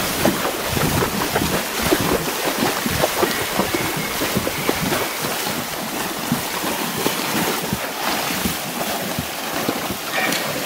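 Horses' hooves splashing steadily through shallow creek water, with wind buffeting the microphone.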